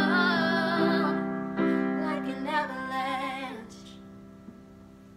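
Two female voices singing together with vibrato over piano accompaniment; the singing stops about three and a half seconds in and the piano notes die away.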